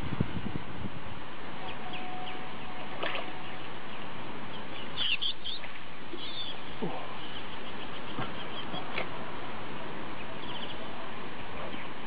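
Outdoor wetland ambience: a steady hiss with scattered high, short bird chirps and whistles, a cluster of them about halfway through and a quick trill near the end.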